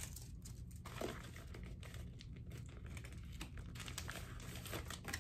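Plastic mailer packaging handled in the hands: faint, intermittent crinkling and rustling with a few small clicks.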